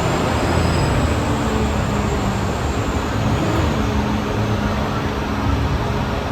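Studio Tour tram running with a steady low rumble.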